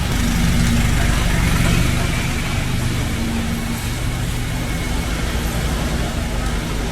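Steady low rumble of a running motor with a constant humming drone.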